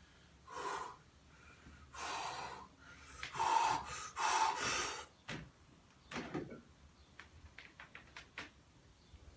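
A powerlifter's sharp, forceful bracing breaths, about four in quick succession, as he grips the barbell to brace for a near-maximal deadlift. Light clicks and taps follow.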